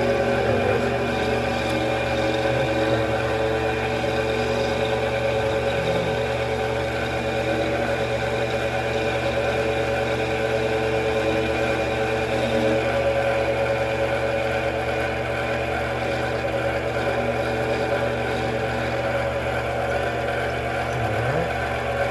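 Mini metal lathe running steadily through a turning pass, its motor and gearing giving a constant whine made of several steady tones.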